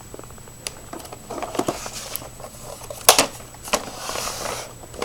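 Objects being handled and moved about: scattered clicks and rustling, with a sharp knock about three seconds in.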